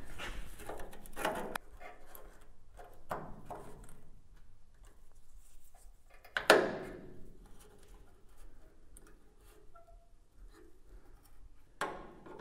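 Handling noises of a thin steel repair panel being held and positioned against a car body: light scrapes, rustles and small clicks. About six and a half seconds in comes a single sharp metallic clack with a short ring, as a welding magnet snaps onto the steel. A smaller knock follows near the end.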